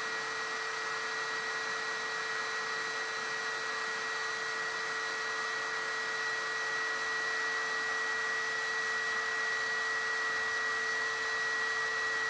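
Hydraulic pump of a Lesu Kobelco SK500 LC RC excavator running with a steady, unchanging whine and hiss, as fresh hydraulic fluid is fed into its tank by syringe.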